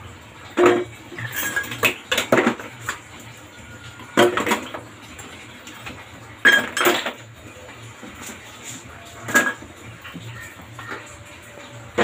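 Kitchen bottles, jars and utensils clinking and knocking as they are set down into a plastic tub, in short bursts of clatter every few seconds.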